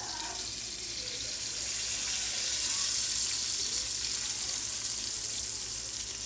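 Salmon frying in hot oil in a pan: a steady sizzle with fine crackling, swelling a little about two to three seconds in.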